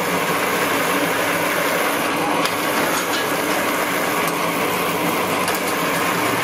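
Nut-tapping machine running steadily as its spindle drives a tap through iron nut blanks held in a steel jig, with a few light clicks.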